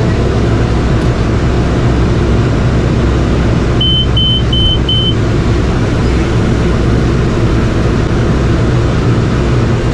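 Tractor engine running steadily with a loud, even low drone. About four seconds in, four short, high electronic beeps sound in quick succession.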